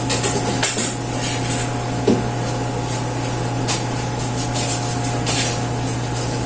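Scrubbing and wiping with a cloth, short hissy rubbing strokes and a few light knocks, over a steady low electrical hum.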